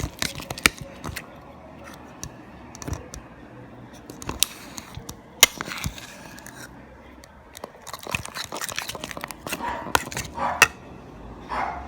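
Irregular sharp clicks, taps and scraping from a utensil and cup being handled while activator is added to slime and stirred. A dog barks once near the end.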